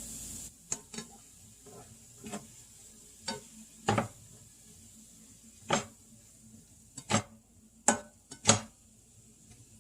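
A cooking utensil knocking and scraping against a frying pan in about ten separate strokes while ground beef is stirred into vegetables. Frying sizzle is heard at first and drops away about half a second in.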